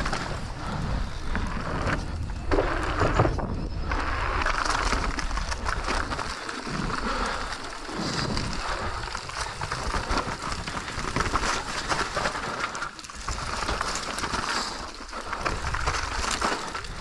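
Enduro mountain bike ridden fast down a trail: tyres rolling over dirt and stones and the bike rattling over the bumps, under a constant rushing noise.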